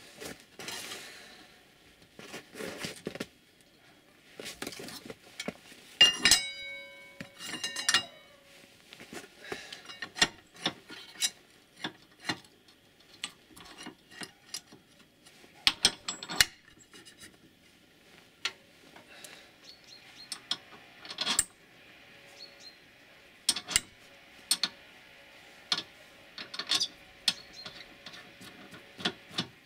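Metal parts and tools being handled on a circular saw: scattered clinks and knocks, with a metal part ringing briefly about six seconds in and again near eight.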